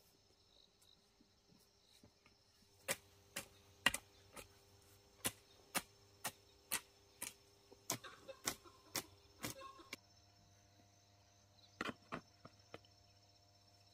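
A series of sharp knocks, about two a second for several seconds, then a few more near the end, over faint steady insect chirring.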